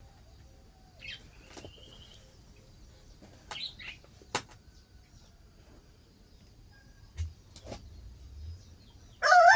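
Faint, scattered small-bird chirps and a few sharp clicks, then near the end a rooster starts crowing, much louder than anything before it.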